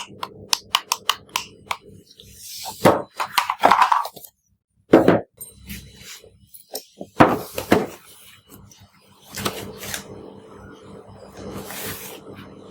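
Hard plastic being handled: a run of sharp clicks and knocks with bursts of rustling.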